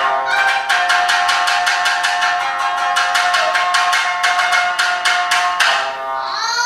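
Shamisen accompanying rokyoku, struck with the plectrum in a rapid, even run of sharp plucked notes, several a second. Near the end a voice slides upward in pitch.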